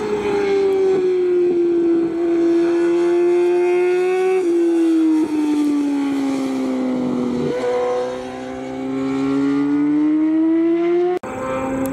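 600cc four-stroke J-GP2 race motorcycles running at high revs through a long corner. The engine note sags and then rises as they drive out, with a couple of small jumps in pitch along the way, and it cuts off abruptly near the end.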